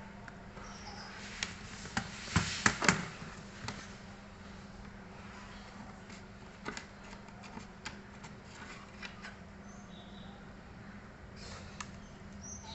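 Plastic clicks and snaps as a Dell Inspiron Mini 1018 netbook's keyboard is pried loose from its case. A cluster of louder snaps comes about two and a half seconds in, followed by scattered light clicks and taps.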